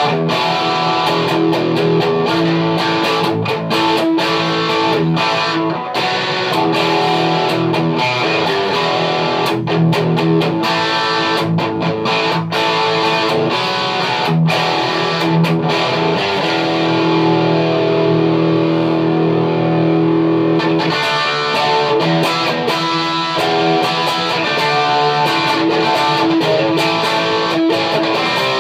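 Self-assembled Stratocaster electric guitar played through an amplifier: a continuous run of picked notes and chords, some held.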